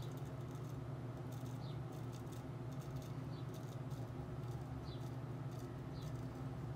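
Straight razor scraping through lathered stubble in short strokes, a dry crackling rasp, over a steady low background hum.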